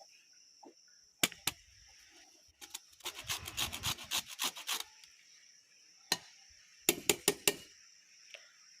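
Lemon rind being grated on a hand grater: a quick run of rasping strokes in the middle, with a couple of single scrapes before it and a short burst of four sharper scrapes near the end.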